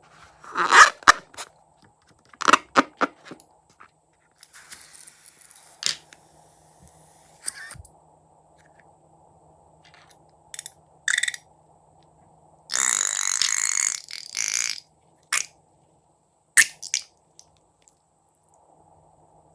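Crunchy slime being squished and worked by hand: scattered sharp crackles and squelching pops, with a denser run of crackling lasting about two seconds past the middle.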